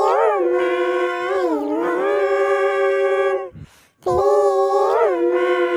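A dog howling: two long, held howls, each starting with a rise and fall in pitch and then holding one tone. The second howl begins about four seconds in, after a short break.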